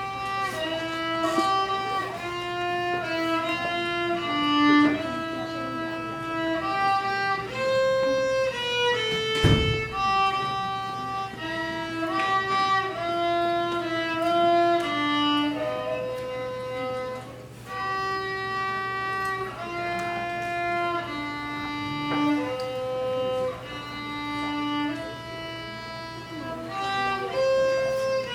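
Violin playing a simple melody note by note at a student recital, with one low thump about a third of the way through.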